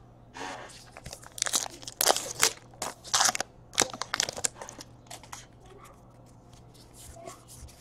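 A foil trading card pack wrapper crinkling and crunching in a run of bursts as it is torn open and pulled off the cards, loudest in the middle. Fainter rustles of the cards being handled follow near the end.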